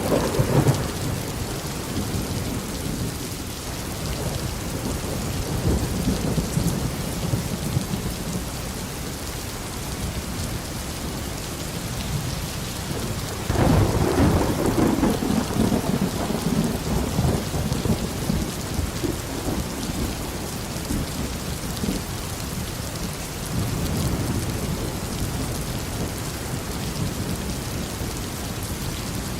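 Steady tropical rain falling, with thunder rumbling under it. A rumble dies away in the first second, a loud roll of thunder starts about halfway through and lasts several seconds, and a weaker rumble comes later.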